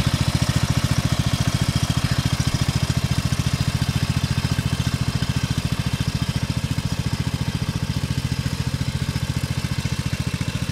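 Riding lawn mower engine running steadily, with a fast, even pulse.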